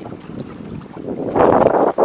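Wind buffeting the microphone, swelling into a loud gust about one and a half seconds in.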